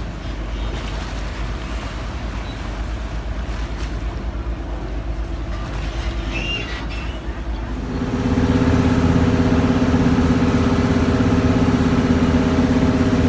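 Boat engine running steadily, then about eight seconds in a louder, steady drone of a river boat's engine under way.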